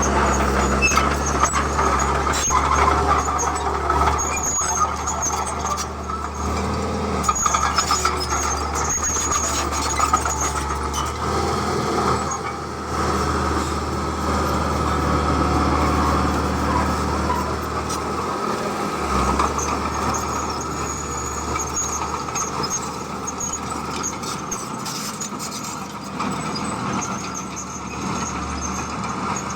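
Heavy diesel construction machinery running steadily, with high metallic squeals coming and going and occasional clanks.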